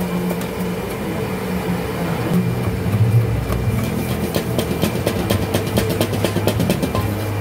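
Metal ladle scraping and clanking against a steel wok as minced pork is stir-fried, with the clicks coming faster in the second half. A steady low hum from the gas wok burner runs underneath.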